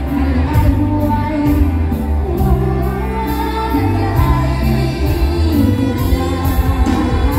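Live mor lam band playing loud through a large PA system, with a singer over heavy bass and a steady drum beat.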